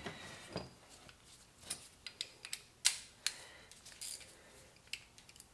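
Scattered light clicks and clinks of hand tools being handled: a ratchet with a spark plug socket on it being picked up and set in place, with the sharpest click about three seconds in.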